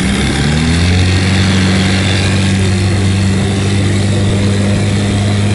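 Johnson outboard motor throttled up from idle, its pitch rising over the first second, then running steadily at speed as the boat gets under way.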